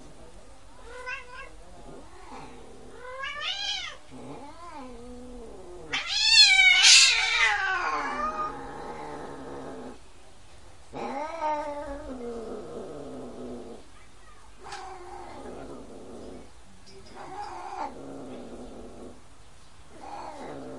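Cats caterwauling while mating: a series of long, yowling calls with a wavering pitch. The loudest comes about six seconds in and lasts around two seconds, with further yowls after it.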